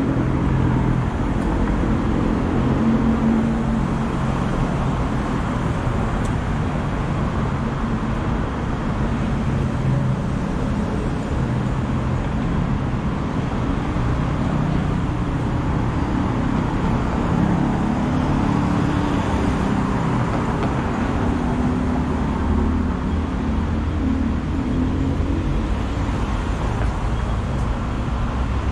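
Steady road traffic: cars running past on a busy multi-lane road, a continuous mix of engine hum and tyre noise.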